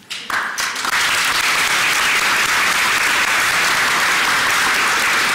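Audience applauding: a few scattered claps at first, filling out within about a second into steady, full applause.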